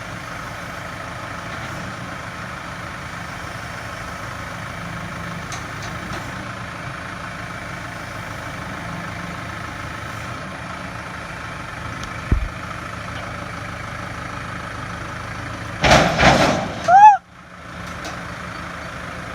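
Tractor engine running steadily, with a single sharp knock about twelve seconds in. Near the end comes about a second of loud clatter and a squeal that rises and falls in pitch, cutting off suddenly.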